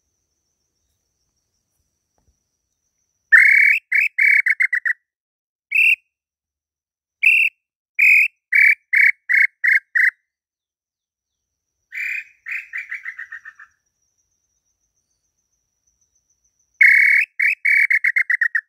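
Tataupa tinamou (inhambu pé-roxo) calls: several runs of short, clear whistled notes, each run fast and even, with two single notes between them. One quieter run falls in pitch and trails off.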